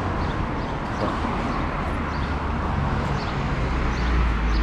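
Street ambience: steady traffic noise, with the low rumble of a vehicle growing stronger near the end, and faint high chirps above it.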